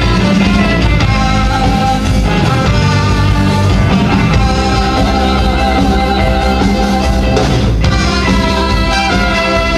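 Live band music: a steady, dense rock-style groove with sustained pitched instruments over a continuous bass and drums.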